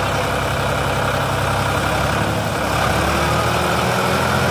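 Sonalika DI 35 tractor's diesel engine running steadily at low speed while its hydraulic tipping trailer is raised to dump soil; the engine note shifts slightly about three seconds in.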